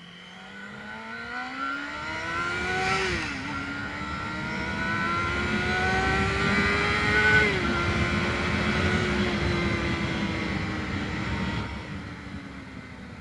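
Yamaha FZ250 Phazer's 250 cc inline-four engine accelerating hard through the gears. The engine note climbs and drops at two upshifts, about three and a half and seven and a half seconds in, then holds high revs and eases off slightly near the end.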